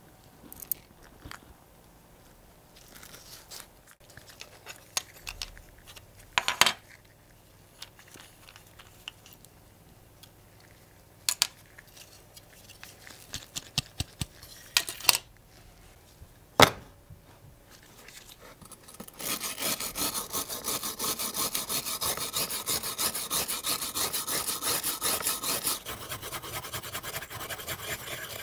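Scattered sharp clicks and taps of small metal screws, parts and tweezers being handled. About two-thirds of the way through, a hand wire brush starts scrubbing rapidly and steadily on the flaking paint of a die-cast model car body.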